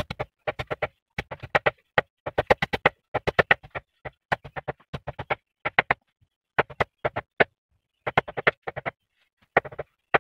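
A blade chopping leafy green stalks on a wooden board: rapid strokes, several a second, in short runs with brief pauses between them.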